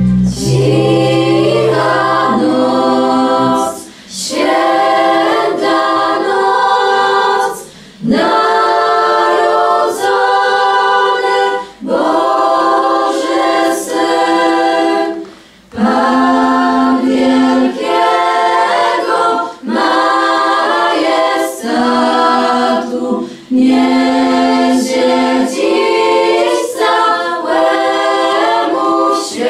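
Choir of children and teenagers singing in phrases of a few seconds, with short breaks for breath between them. A held keyboard chord sounds under the opening few seconds and then dies away.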